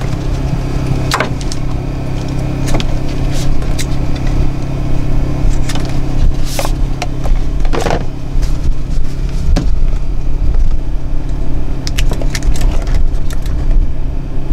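An engine running steadily at idle, a constant low hum, with scattered clicks and clinks of hand tools being handled.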